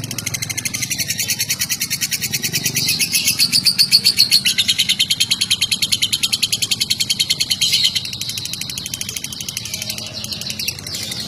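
Lovebird singing a long, fast, unbroken chattering trill that loosens and softens about eight seconds in.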